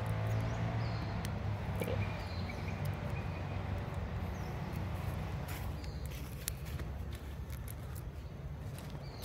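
Outdoor ambience: a steady low rumble with a few short, faint high chirps and scattered light clicks.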